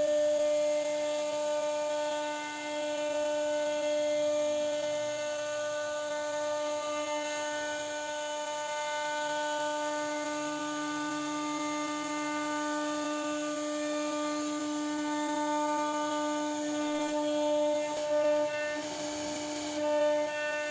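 CNC router spindle running with a steady high-pitched whine at constant pitch while its bit carves wood, with a few brief surges near the end.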